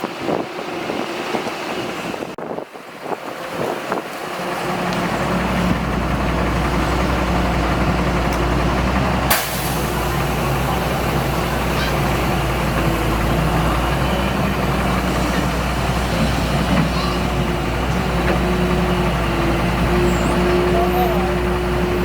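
Heavy diesel engine of earthmoving machinery running steadily, coming up in level about four seconds in. There is a single sharp knock near the middle.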